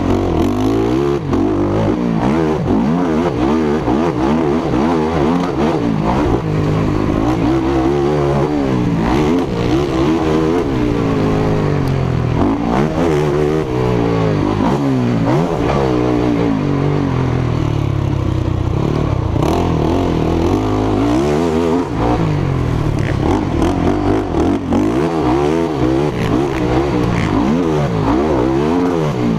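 Racing quad's engine heard up close from on board, revving up and down over and over as the rider accelerates and backs off around a motocross track.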